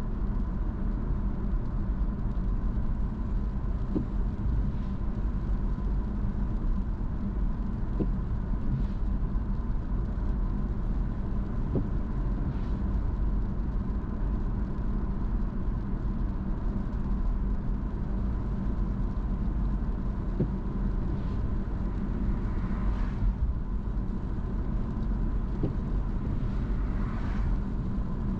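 Car driving along at a steady pace: a constant low road and engine rumble, with a faint steady whine throughout and two brief swells of noise late on.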